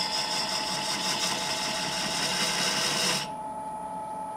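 Parting tool scraping a groove into a mesquite log spinning slowly on a wood lathe: a steady hiss that stops suddenly about three seconds in as the tool is pulled away. Under it the lathe's motor runs with a steady whine that carries on after the cut.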